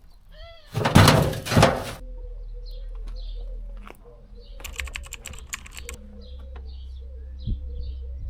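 Renovation work in an old house: about a second in, a loud, harsh crash of impacts and scraping lasting about a second, then a quick run of knocks and rattles around the middle. Small birds chirp in the background.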